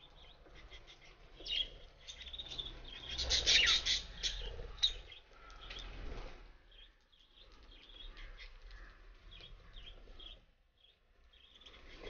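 A flock of caged budgerigars chirping and chattering, many short high calls overlapping. It is busiest and loudest a few seconds in.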